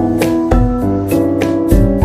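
Background music: a keyboard melody with held chords over a steady drum beat.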